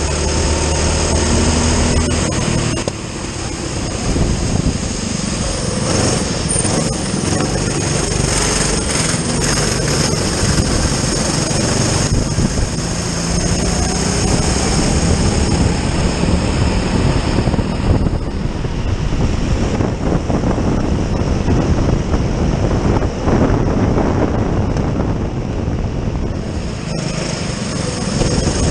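Racing kart's small engine running hard, heard from the kart itself, its pitch rising and falling repeatedly as it accelerates out of and slows into corners, over a steady hiss.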